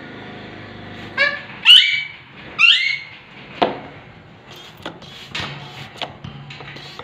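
Alexandrine parakeet calling: three loud, short, rising squawks between about one and three seconds in. A sharp click follows, then fainter clicks and rustling.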